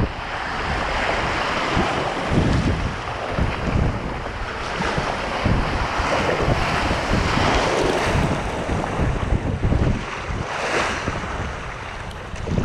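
Rushing flooded river water, a steady loud rush, with wind buffeting the microphone in uneven gusts.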